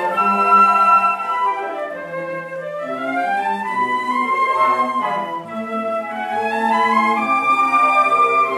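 Flute orchestra playing live: held chords with melodic runs that climb and then fall back, twice.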